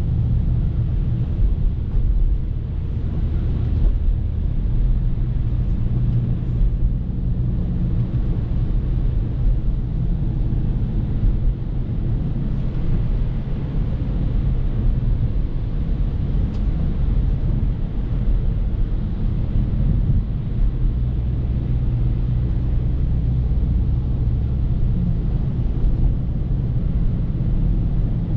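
BMW F30 335i's turbocharged 3.0-litre N55 inline-six running at low, steady revs while the car drives slowly on snowy road, with a continuous hiss of tyre and road noise. The engine drone shifts slightly in pitch a few times.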